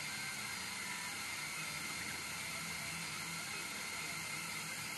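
CNC 1610 mini laser engraver running a job with its 500mW laser module. There is a steady hiss with a faint high whine, and low motor tones come and go as the stepper motors move the laser along the design.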